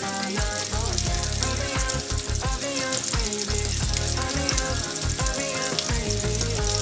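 Beef steak sizzling in hot oil in a frying pan: a steady hiss with many fine crackles. A pop song with a bass beat plays under it.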